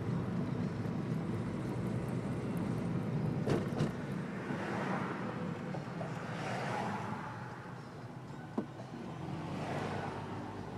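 Steady tyre and engine rumble of a car driving along, heard from inside the cabin. Three swishes of passing traffic rise and fade, and a few light clicks come in the middle.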